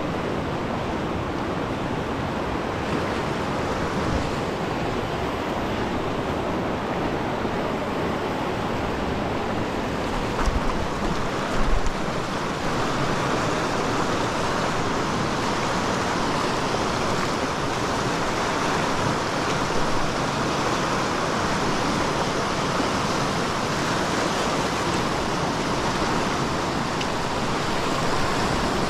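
Whitewater rapids of a fast mountain river rushing over rocks, a steady, unbroken rush close by. Two brief low bumps come about ten and twelve seconds in.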